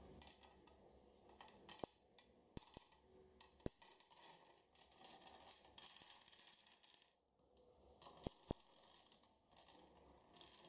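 Popcorn kernels poured from a metal sieve into a frying pan with oil. They fall in irregular bursts of rattling and pattering, with sharp clicks as single kernels hit the pan.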